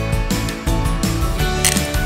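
Background music with a steady beat. Near the end a hand pepper grinder starts ratcheting as it is twisted.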